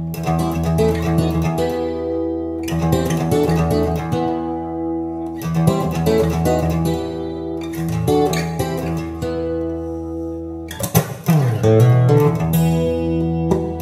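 Recorded music played through a hi-fi loudspeaker system: an instrumental guitar passage over bass guitar, with a swooping slide in pitch about eleven seconds in.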